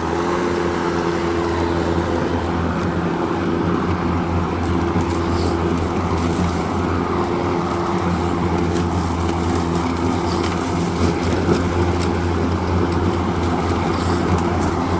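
Ryobi RY40108 40-volt battery lawnmower's electric motor and blade running at a steady hum without cutting out. The mower runs continuously, with its rear safety switch bypassed to cure an intermittent shut-off.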